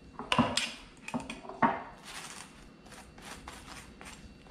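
Table knife clicking sharply against a dish a few times, then scraping softly as it spreads mayonnaise over bread.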